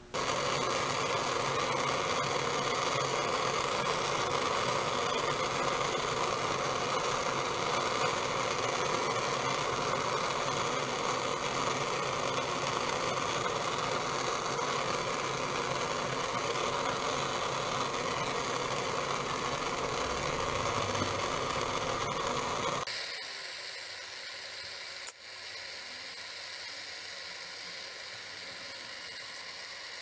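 Propane hand torch on a disposable propane cylinder burning with a steady hiss while it shrinks heat-shrink tubing over a battery cable lug. About 23 seconds in the hiss drops suddenly to a quieter level, and a single sharp click follows a couple of seconds later.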